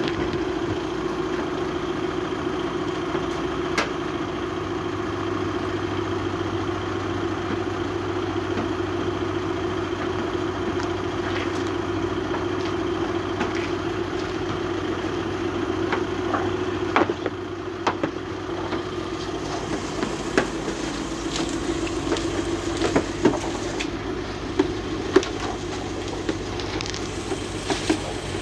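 Steady drone of a wash-bay pressure pump feeding a foam brush as it scrubs a van's panels. In the second half there are a few short, sharp knocks.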